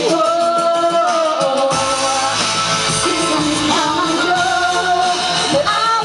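Live band playing a song with women singing the melody, long held notes over the accompaniment.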